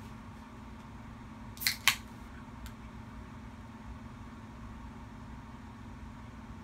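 Two quick crisp crunches about a fifth of a second apart, a young Savannah monitor's jaws biting down on a superworm, over a steady low hum.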